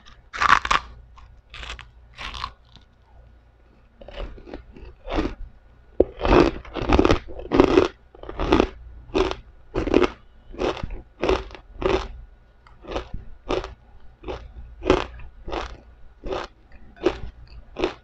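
Close-up biting and chewing of crisp deep-fried pork rinds (chicharon): a loud crunching bite about half a second in, a few more crunches, a short pause, then steady chewing crunches about one and a half a second.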